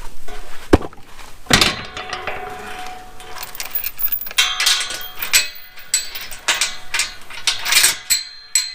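Metal fencing clanking and rattling as a temporary gate is set in place and fastened: a sharp knock, then a louder clang that rings on about a second and a half in, then a few seconds of rattling.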